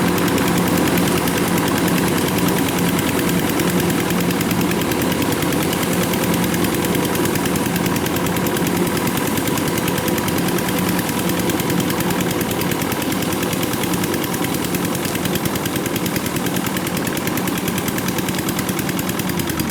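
Kubota combine harvester's diesel engine running steadily with a rapid, even exhaust beat.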